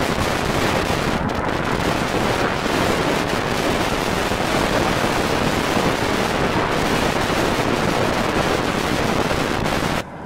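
Strong wind buffeting the microphone: a loud, steady rushing noise that cuts off abruptly near the end.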